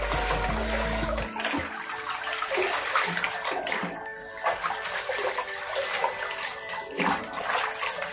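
Water being poured from a plastic mug over a pug standing in a plastic tub, splashing and sloshing as hands rub it down and swish the bath water. Background music plays underneath.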